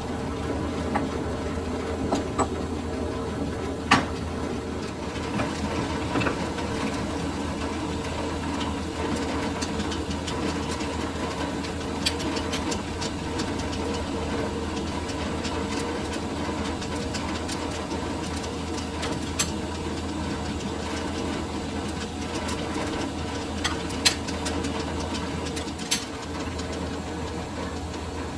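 Lathe running steadily with a constant mechanical hum while machining a metal bush, with scattered sharp metallic clicks, the loudest about 4 and 24 seconds in.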